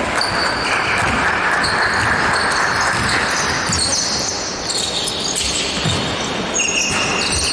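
Basketball being played in a gym: sneakers squeaking on the court in short high chirps and the ball bouncing, with echo from the hall.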